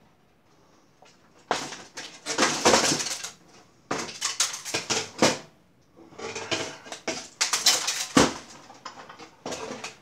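Metal clattering and scraping as a circuit board is worked loose and lifted out of an IBM pSeries server's sheet-metal chassis, with a screwdriver knocking against the metal. It comes in several bursts after a quiet first second, with one sharp knock near the end.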